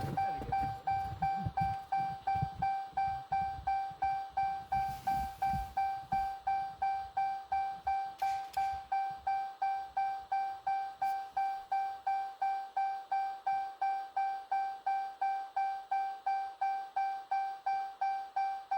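Car's door-open warning chime dinging over and over at an even pace, about two to three dings a second, each a single bright tone that fades quickly.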